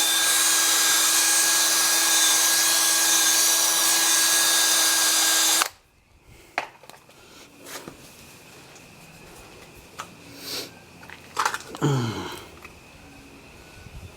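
Power drill with an 8 mm bit running steadily as it bores out a motorcycle tyre's puncture hole, widening it to take a rubber grommet plug. The drill cuts off suddenly a little under halfway through, and a few light knocks follow.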